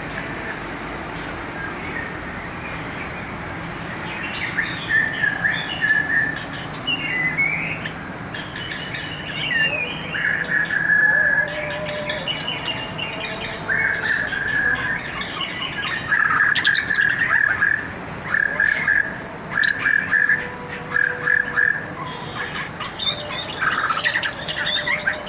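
A songbird singing a long, varied song of repeated whistled notes and fast trills, louder from about four seconds in.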